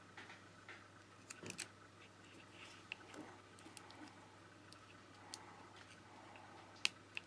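Faint, scattered small clicks and light scraping from metal tweezers and fingertips working on the small internal parts of an opened iPod Touch, the sharpest click near the end, over a faint steady low hum.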